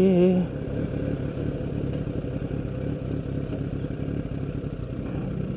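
Sport motorcycle engine running at a steady low speed while being ridden.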